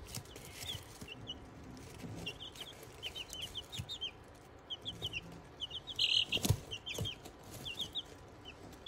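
Young chicks peeping: short, high peeps in quick runs of two to four, repeated throughout, with a couple of light knocks about two-thirds of the way in.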